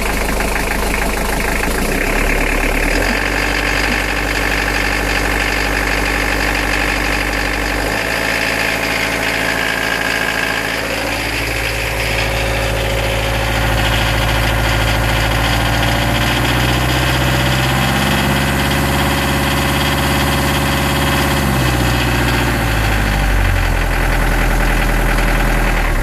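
Toyota-based Nanni turbo diesel marine engine running while the throttle is worked: the revs step up, climb, hold higher for several seconds, then drop back near the end. Under throttle it makes the knock that worried the owner, a knock later cured by refurbishing the injectors and adjusting the valve clearances, which were slightly out.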